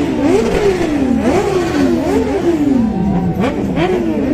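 Superbike engines being revved repeatedly, more than one at once, each rev jumping up in pitch and sinking back, about one a second, overlapping.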